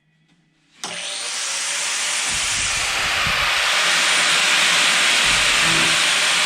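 A power grinder starts suddenly about a second in and runs steadily against sheet-steel floor panel.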